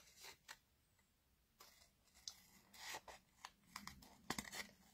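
Scissors snipping through thin patterned paper: a run of faint, short cuts and paper rustles, starting about a second and a half in and coming thickest near the end.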